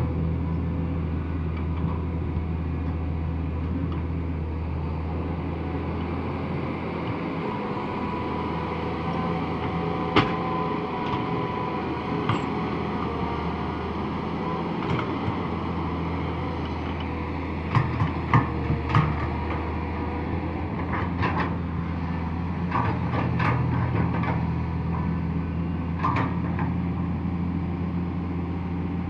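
A hydraulic crawler excavator's diesel engine runs steadily as the machine digs and swings, easing and picking up with the load. Several sharp metal knocks come from the machine, with a cluster of them about two-thirds of the way through.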